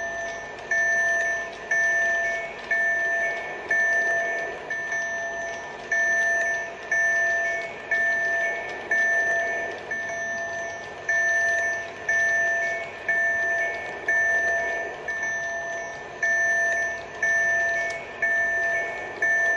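Level-crossing warning bell ringing, a single struck tone repeated about once a second, each stroke fading before the next.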